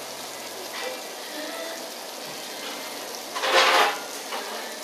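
Dishes and the wire rack of an open dishwasher clattering once, briefly and loudly, about three and a half seconds in, over a steady kitchen hiss.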